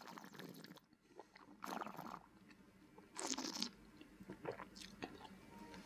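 A wine taster slurping a mouthful of red wine, drawing air through it and working it around the mouth. The sound is quiet, with two short noisy bursts about a second and a half apart and a few fainter mouth sounds after.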